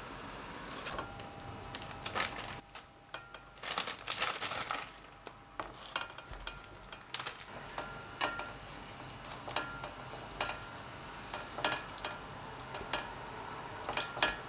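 Kitchenware being handled: scattered clinks, taps and knocks of dishes and utensils, busiest about four seconds in, over a faint steady hiss.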